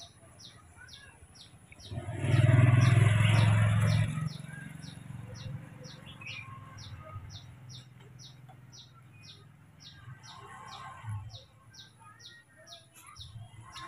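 A bird chirping over and over, short high downward chirps at about two to three a second, steady throughout. About two seconds in, a louder low-pitched noise lasts for about two seconds.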